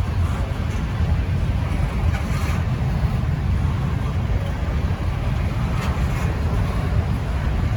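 Wind buffeting the microphone as a steady low rumble, over a slow-moving intermodal freight train rolling past, with a couple of faint knocks.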